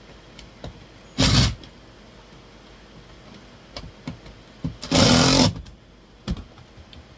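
Cordless drill running in two short bursts, a brief one about a second in and a longer one about five seconds in, driving a screw for a wall-mount bracket, with a few light handling clicks between.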